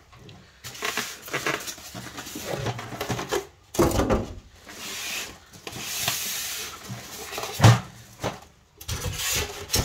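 A printer in its clear plastic bag being worked out of its carton: the plastic crinkles and rustles and rubs against the cardboard and packing pieces. Two thumps land, about four seconds in and near eight seconds in, the second the loudest.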